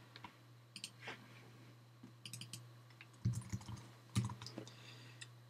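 Computer keyboard keys tapping and mouse clicks, in short scattered clusters with a few duller knocks, over a steady low hum.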